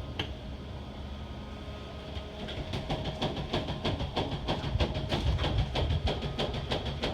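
Steady machine hum, likely from running water-extraction or drying equipment. About two and a half seconds in, a rapid, irregular clattering of several knocks a second starts and grows louder.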